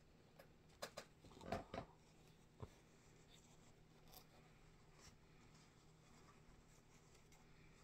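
Faint rustling of cotton fabric fat quarters being handled and unfolded, a few soft rustles in the first couple of seconds, then near silence with room tone.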